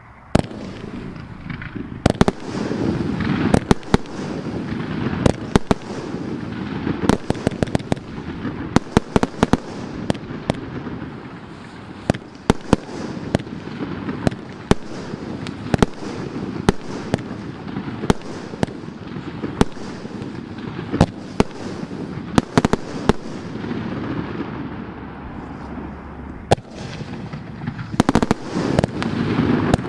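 Vivid Pyrotechnics 'Face Off Round-2' 54-shot 30 mm firework cake firing its shots one after another: sharp cracks and bangs come irregularly, at times several a second, over a continuous noisy rush.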